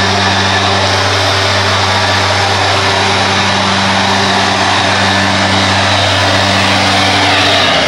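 Husqvarna 150BT backpack leaf blower's 50cc two-stroke engine running at high, steady speed, with the rush of air from the blower tube. The engine has a freshly rebuilt cylinder, piston and rings, now broken in. The engine note drops away right at the end.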